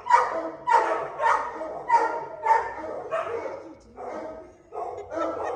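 Dog barking repeatedly, about nine barks in quick succession at a little under two a second, the last few softer.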